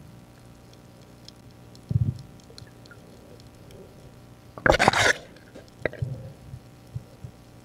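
Underwater sound during a night dive: faint scattered clicks, a dull knock about two seconds in, a loud hissing rush of about half a second near the five-second mark, then a few more low knocks.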